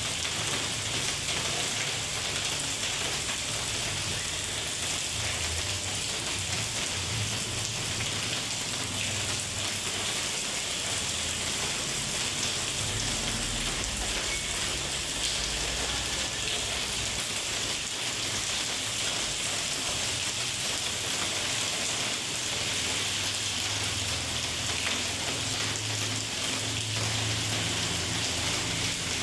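Steady rain falling hard on surfaces, with a low, uneven rumble underneath.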